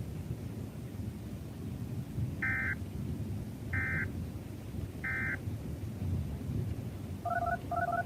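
Emergency Alert System end-of-message data bursts: three short, evenly spaced digital screeches about a second and a quarter apart, closing the severe thunderstorm warning. They sound over a steady low rumble, and two short beeps follow near the end.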